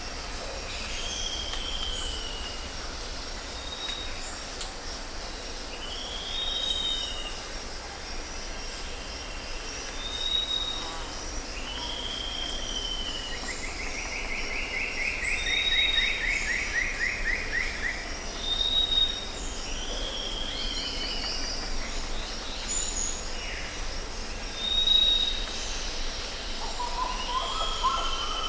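Rainforest ambience: several birds calling over a steady high insect drone. A short high whistle and a falling, arched call repeat every few seconds, a long descending trill comes in about halfway, and lower calls join near the end.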